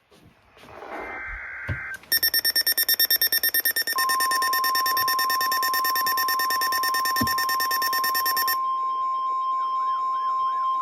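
Emergency alert tones from a weather radio broadcast: about two seconds of rapid, harsh beeping, then a steady single-pitch warning alarm tone. Near the end a warbling, siren-like tone joins it.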